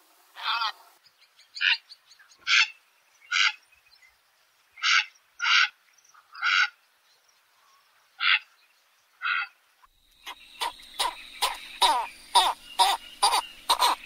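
Purple heron giving single short calls, nine of them spaced irregularly about a second apart; from about ten seconds in, a quicker series of short sharp sounds, about three a second, over a faint steady hum.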